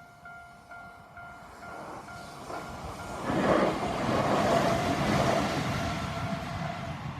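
Japanese railway level-crossing warning bell, the standard electronic tone, dinging about twice a second. About three seconds in, a passing train rises over it and becomes the loudest sound, its noise mostly covering the bell.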